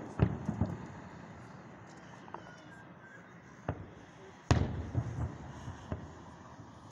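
Aerial firework shells bursting as a series of sharp booms. A quick run of bangs comes in the first second and a single bang a little past halfway. The loudest burst, followed by a few smaller bangs, comes about two-thirds of the way in.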